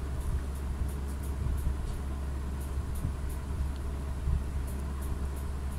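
Steady low mechanical rumble, with faint irregular high ticks over it.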